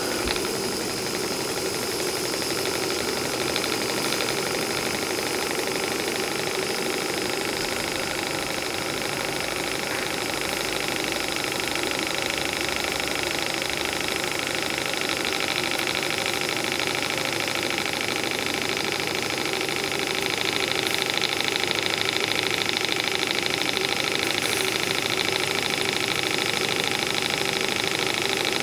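Graham TVR1A twin-cylinder model steam engine running steadily on steam, a fast even mechanical beat under a wide steam hiss, getting a little louder about twenty seconds in.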